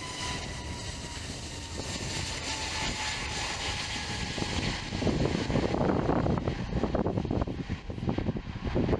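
Airbus A320neo's CFM LEAP-1A jet engines at take-off power as the jet climbs away, a steady rumble with a fan whine that slowly falls in pitch. About five seconds in, gusty wind buffeting the microphone takes over and becomes the loudest sound.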